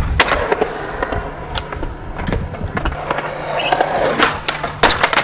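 Skateboard wheels rolling on concrete, broken by repeated sharp clacks of the board, with a cluster of loud clacks near the end.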